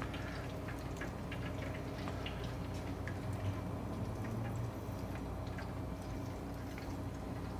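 Quiet kitchen room tone: a steady low hum with a few faint, scattered small ticks and clicks.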